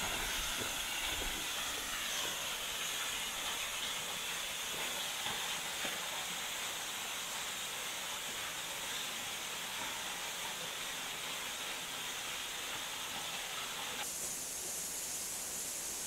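Steady rushing hiss of a waterfall about 15 m high pouring into its plunge pool. About fourteen seconds in, the sound changes abruptly to a thinner, higher hiss.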